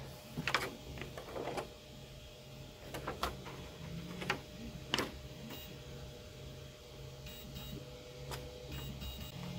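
Thin clear plastic face-shield sheet being handled and pressed onto the tabs of a 3D-printed frame: short light plastic clicks and crinkles, several in the first second and a half, more around three and five seconds in, and one near the end. A faint steady hum runs underneath.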